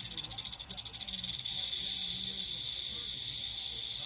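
Rattlesnake rattle: a continuous high, dry buzzing hiss. It flutters rapidly for about the first second and a half, then holds steady.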